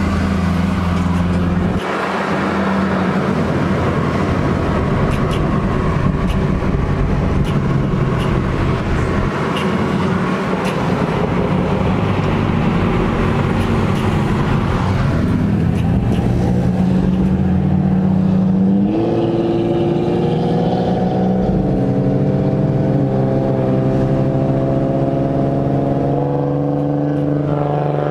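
Car engine and road noise heard from inside a moving car. About two-thirds of the way through the engine revs up as a car accelerates, then holds a steady drone, rising again near the end.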